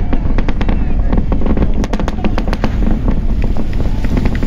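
Starship Super Heavy booster's Raptor engines heard from miles away during ascent: a continuous low rumble full of dense, irregular sharp crackling pops.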